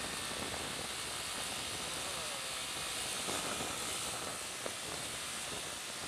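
Steady rushing wind and road noise on a motorcycle's camera microphone while riding uphill, an even hiss with the bike's engine running underneath.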